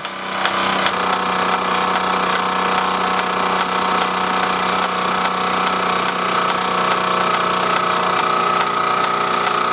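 Mamod MEC1 toy steam engine running steadily under live steam, heated by a gas burner, driving a model workshop's line shafts and buffing wheel through drive belts.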